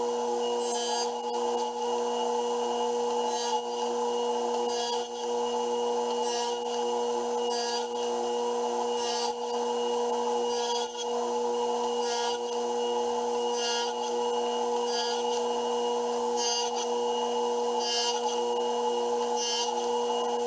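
Table saw running steadily while the blade cuts finger-joint slots in a pine board pushed through on a box-joint sled. Each pass through the wood gives a short rasping cut, about one every second and a half.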